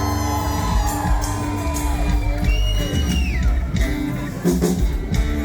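Live country-rock band playing loudly, with bass and drums under sustained lead notes, and whoops and yells from the crowd.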